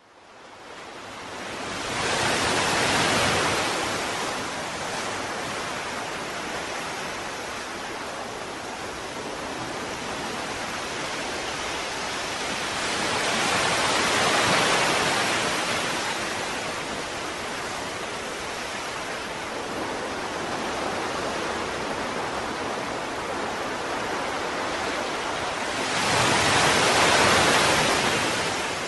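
Ocean surf: a steady rushing of waves that fades in and swells loudest three times, soon after the start, in the middle and near the end.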